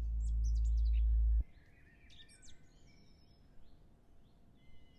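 A deep, sustained low note ending the intro music cuts off abruptly about a second and a half in. After it, birds chirp and twitter faintly in repeated short calls over low background noise.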